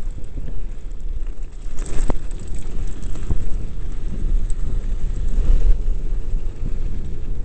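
Wind buffeting a POV camera's microphone on a mountain bike descending a gravel road at about 35 mph, with tyres rumbling over the gravel. A few sharp rattles come from bumps in the track.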